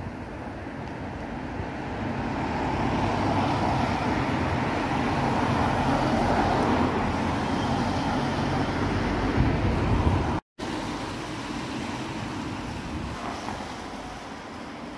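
A car driving past close by, its tyre and engine noise swelling over several seconds, with wind rumbling on the phone's microphone. The sound breaks off abruptly about ten seconds in and gives way to quieter street noise.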